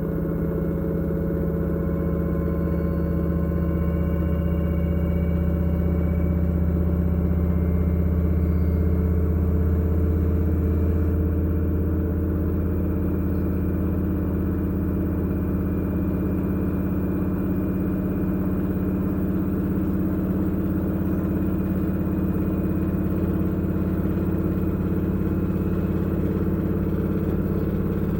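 LG F2DR5S8S6W direct-drive washing machine in its spin cycle, the drum spinning with a steady low hum and faint higher whine. The sound swells slightly about a third of the way in, then settles a little lower and holds steady.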